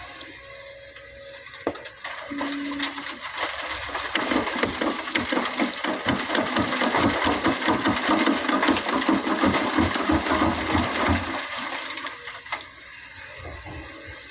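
Sand and stones from an excavator bucket pouring into a dump truck's steel bed: a dense rattling clatter that builds about four seconds in and dies away near the end.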